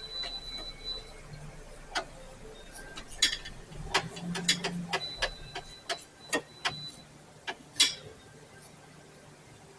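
Sharp metallic clicks and clinks of hand tools on engine parts, about a dozen at irregular spacing, most of them between two and eight seconds in.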